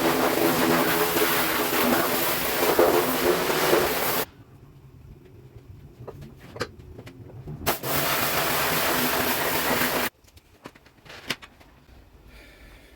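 Pressure washer spraying in two blasts: a loud hiss with a motor hum that cuts off suddenly about four seconds in, a few clicks, then a second burst of about two seconds that stops abruptly near the end. The jet is stripping tar off a car's underside.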